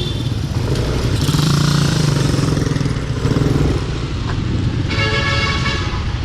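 Suzuki Raider motorcycle engine running while riding in traffic, its pitch rising and falling briefly about a second in. A vehicle horn honks for about a second near the end.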